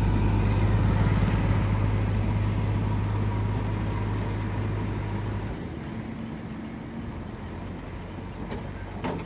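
Heavy diesel engine running with a steady low hum that grows fainter and drops away about halfway through.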